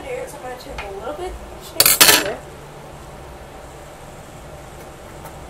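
Kitchen utensil clinking and scraping against a bowl while a slime mixture is worked, with a few light clicks and then one loud clatter about two seconds in.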